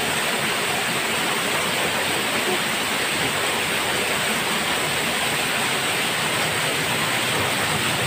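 Small waterfall pouring down a rock face into a shallow rocky pool: a steady rush of falling, splashing water.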